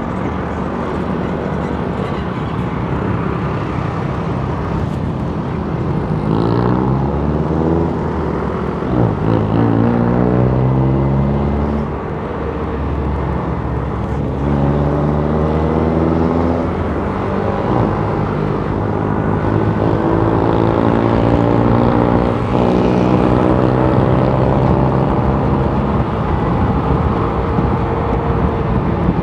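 Motorcycle engine running under way, its pitch rising several times as it accelerates and dropping back between gears, over steady wind and road noise.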